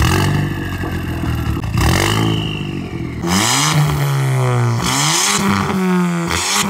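Ford Fiesta ST mk7's stage 1 1.6 EcoBoost four-cylinder on a Milltek full-tube exhaust, free-revved in several quick blips that rise and fall back between them. Heard at the twin tailpipes.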